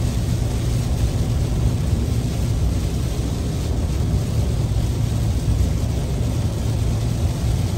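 Steady in-cabin noise of a car driving at highway speed in heavy rain: tyres on the wet road and rain on the car, with a strong low rumble.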